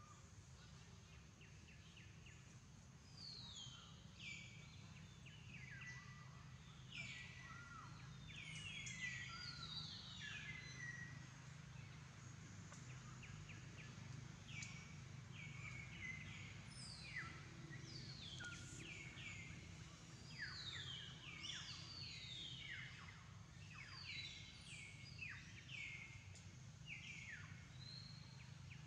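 Faint chorus of wild birds calling: many quick chirps sweeping downward in pitch, overlapping and repeated throughout, over a low steady background hum.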